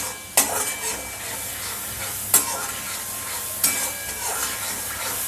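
Oil sizzling steadily in a metal wok while a metal spatula stirs, with a few sharp clanks of the spatula against the pan.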